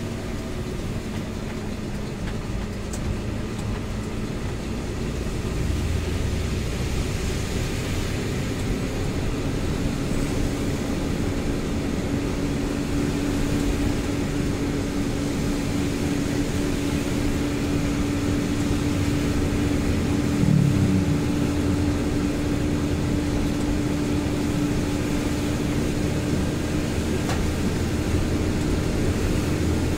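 Inside the cab of a Mitsubishi Fuso Fighter diesel truck driving on a wet road in rain: steady engine drone mixed with tyre and rain noise, growing a little louder about six seconds in and then holding a steady hum. A brief wavering tone stands out about two-thirds of the way through.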